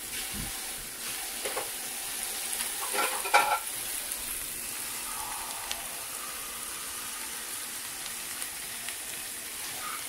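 Uncooked rice, chopped chicken and onions sizzling steadily in oil in a stainless steel skillet, the rice toasting before the water goes in. A short metallic clatter comes about three seconds in.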